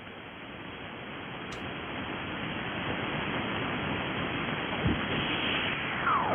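Shortwave band noise: a steady hiss from the Icom IC-7300's single-sideband receiver on an open frequency, slowly getting louder. Near the end a couple of falling whistles slide down through it.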